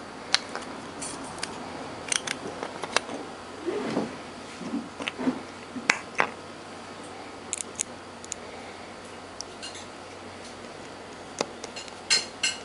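Scattered sharp clicks and taps of small hard plastic parts being handled and pressed together as a ribbed plastic radio knob is fitted, with a quick cluster of clicks near the end as a thin metal rod is pushed into its centre.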